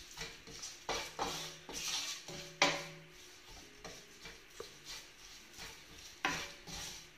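A wooden spatula scraping and stirring thick pickle masala in a granite-coated non-stick frying pan: a few irregular scraping strokes, the sharpest about two and a half seconds in and another near the end, with a quieter stretch between.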